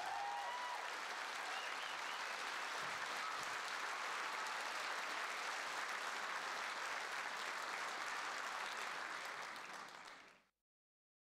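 Audience applauding steadily, fading out about ten seconds in and then cutting to silence.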